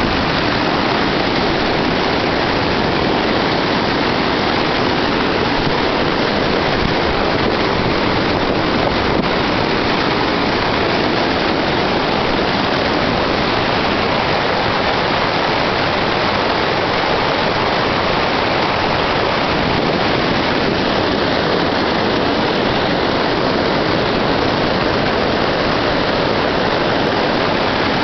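A small waterfall stream running high, its whitewater rapids rushing over rocks close by in a steady, loud, unbroken rush.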